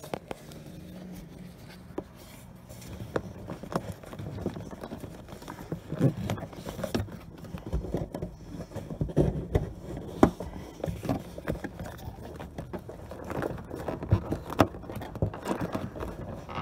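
Rubber wiring grommet being pushed and worked into its hole in a vehicle's body by hand: irregular scraping and rubbing with small knocks, busier from about six seconds in.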